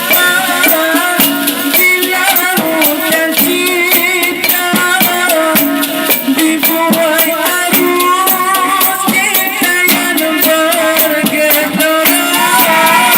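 Instrumental break of a band playing a Malay pop song: a wavering melody line over a quick, steady shaker and drum rhythm.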